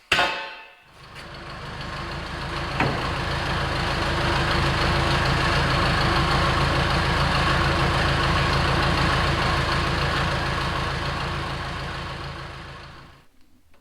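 A motor or engine running steadily at one speed, after a sharp hit at the very start. It swells over the first few seconds and dies away near the end.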